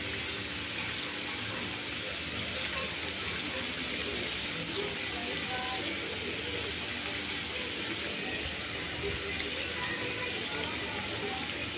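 Battered okra and potato finger chips deep-frying in hot oil in a kadai: a steady, even sizzle of bubbling oil.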